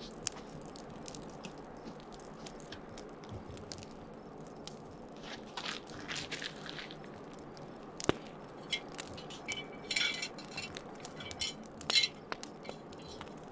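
Wood campfire crackling with scattered sharp pops, with a few brief scuffing and scraping sounds of someone moving and handling things beside it.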